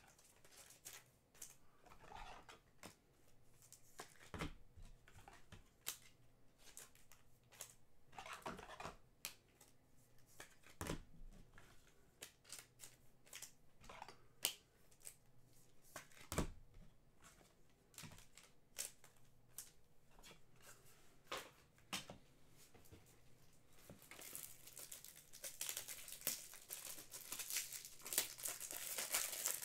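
Faint handling of trading cards and their plastic packaging: scattered clicks and short rustles, then steadier crinkling and tearing of plastic wrap over the last five seconds or so.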